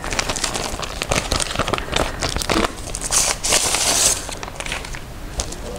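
Paper being handled as an envelope is torn open and the letter inside is pulled out: crinkling and rustling throughout, with a louder, longer stretch of paper noise about three seconds in.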